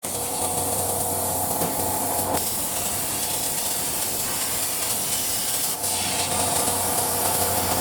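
Plasma torch cutting steel on a CNC plasma table: a steady, loud hiss with a faint whine under it.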